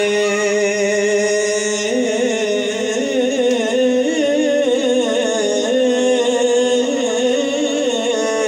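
A man singing a naat (Punjabi devotional song) into a microphone, holding one long steady note for about two seconds and then moving into a wavering, ornamented melodic line.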